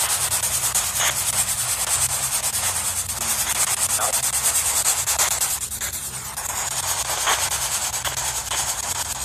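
Steady hissing background noise over a low rumble: traffic on the avenue behind the building.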